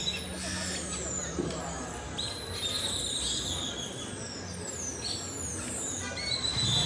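Many birds chirping with quick falling high whistles, over the steady low hum of a nearby vehicle engine and street noise.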